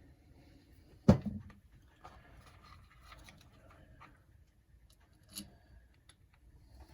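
Small workbench handling sounds: a sharp knock about a second in, like a tool or part set down hard, then light clicks and rustles of screws, tools and parts being handled, with one more click near the end.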